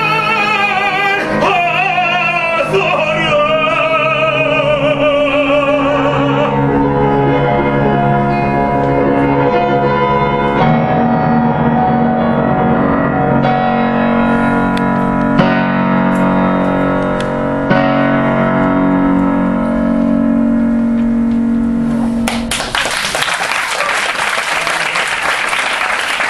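Operatic tenor singing with a wide vibrato and falling phrases over piano accompaniment for the first few seconds, then held piano chords closing the duet. Audience applause breaks out near the end.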